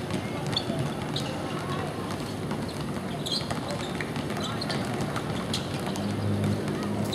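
Outdoor ambience at an amateur football match: distant players' voices and general field noise, with a few short high-pitched sounds scattered through it and a low hum about six seconds in.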